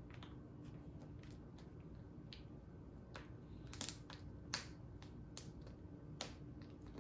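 Faint crinkles and sharp clicks of a plastic breast milk storage bag being pressed flat against a countertop edge to squeeze out the air and pressed shut along its zip seal. The loudest few clicks come about four seconds in.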